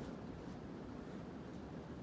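Hunter Passport III ceiling fan with an AirMax motor running, a faint steady rush of air from the turning blades.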